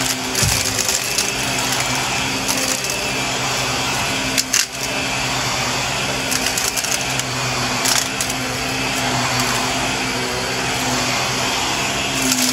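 Shark upright vacuum cleaner running with a steady motor hum as it is pushed back and forth over carpet, with scattered crackles as it sucks up crunchy debris.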